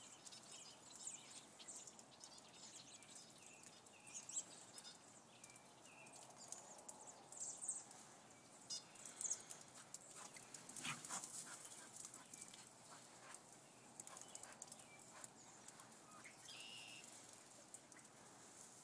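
Faint crunching and pattering of two border collies' paws running through thin snow, with a louder crunching thump about eleven seconds in.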